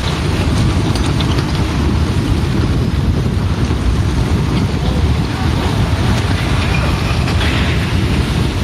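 Mudslide rumbling down a mountain: a loud, steady low roar, with wind buffeting the microphone.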